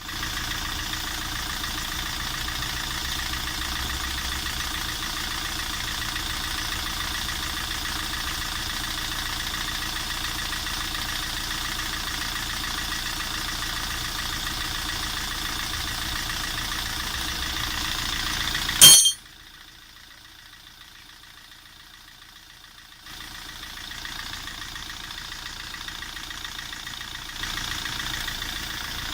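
Opel car engine idling steadily, the owner chasing a knock and an engine vibration. About two-thirds of the way through comes one sharp loud clack, after which the sound drops to a much lower level for a few seconds before rising again.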